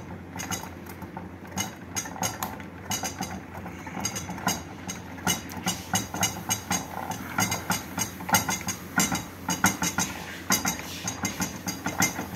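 Furniture and loose objects in a room rattling and clinking in rapid, irregular clicks and knocks as an earthquake shakes the building, louder in the second half.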